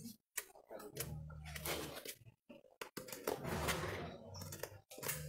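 Farrier's hand tool scraping the underside of a horse's hoof held between his knees: two longer scraping stretches, about a second in and again about three seconds in, with a few sharp clicks between.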